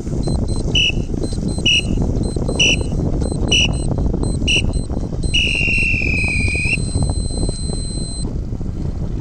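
Sailing race start signal: five short beeps about one a second counting down the final seconds, then one long tone marking the start. Steady low wind noise on the microphone underneath.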